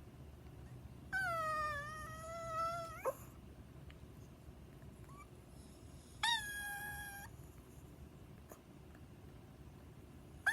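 Chihuahua giving high, drawn-out whine-howls instead of a bark, a dog that does not know how to bark. A long call of about two seconds sweeps sharply upward at its end, then a shorter one-second call follows about six seconds in.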